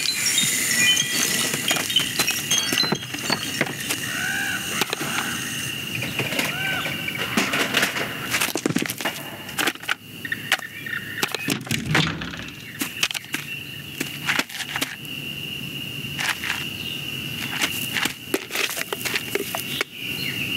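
Film sound effects: a busy run of sharp knocks, clicks and clattering impacts over a steady high-pitched tone, with a few short squeaks about four seconds in.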